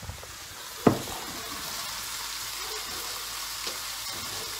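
Sliced beef steak topped with cheddar slices sizzling in a frying pan on the hob, a steady hiss as the cheese melts. A single sharp knock about a second in, after which the sizzle is a little louder.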